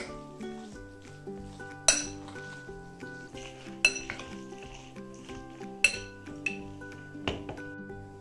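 A metal fork clinks against a glass mixing bowl while a chopped salad is stirred: four sharp clinks about two seconds apart, with softer taps between, over soft background music.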